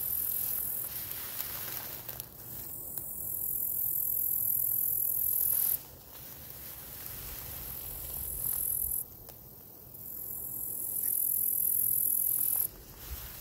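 Male gladiator meadow katydid (Orchelimum gladiator) stridulating: a very high-pitched buzz in long phrases, each swelling and then cutting off sharply, four times with short pauses between.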